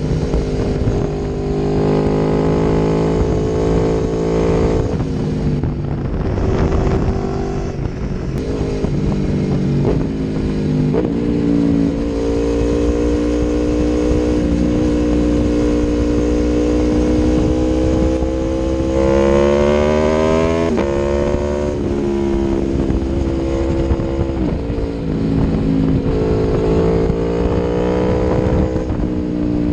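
Aprilia Tuono V4 1100 Factory's V4 engine through an Akrapovic exhaust, under way, its note rising and falling with throttle and gear changes. About two-thirds of the way through it climbs steadily in pitch, then drops off sharply, as on an upshift.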